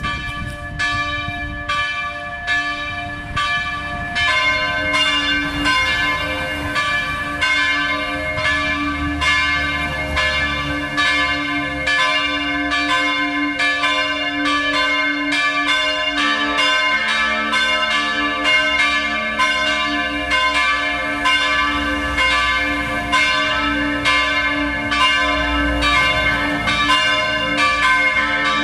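Full peal of a three-bell church ring tuned a', c'', d'' (two St. Florian bells of 1956 and a Böhler bell of 1923), swinging and striking over and over. The strikes thicken about four seconds in, and a deeper bell joins about halfway through.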